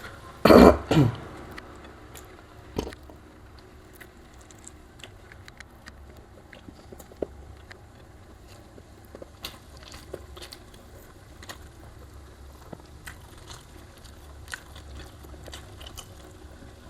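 Close-up eating sounds: chewing, with small scattered mouth clicks and smacks. A brief loud noise comes about half a second in, and a sharp click comes at about three seconds.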